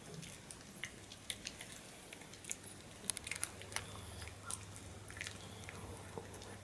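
A small dog chewing a treat: faint, irregular crunching and clicking of its teeth, busiest about three to four and a half seconds in.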